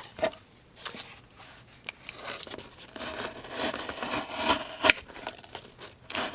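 Sharp D2 steel folding-knife blade cutting through material, a rustling, tearing sound with a few sharp clicks and knocks.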